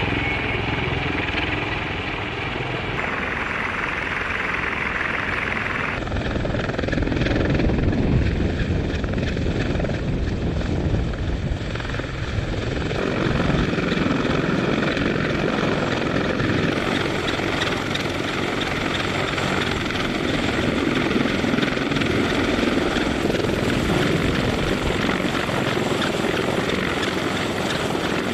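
CH-53E Super Stallion heavy-lift helicopter hovering low overhead, its seven-blade main rotor and three turboshaft engines running loud and steady while a load is hooked up beneath it. The tone shifts abruptly a few times.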